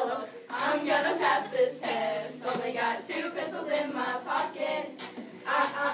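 A group of teenage girls rapping and singing together in unison, in short chanted phrases.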